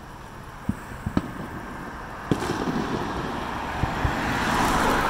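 Distant fireworks going off in sharp single bangs: one just under a second in, two more around a second, one a little after two seconds, and two near the end. A car drives past on the street, its tyre and engine noise swelling through the second half and loudest near the end.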